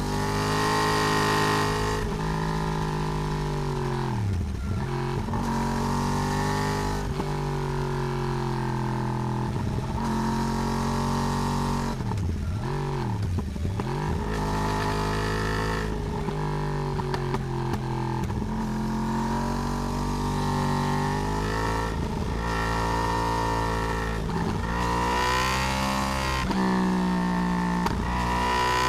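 Yamaha R1 (RN22) crossplane inline-four, with its uneven "big bang" firing order, being ridden and picked up by a camera on the swingarm. The engine note rises and falls with the throttle, dropping sharply in pitch about four seconds in and twice more around twelve to fourteen seconds before climbing again.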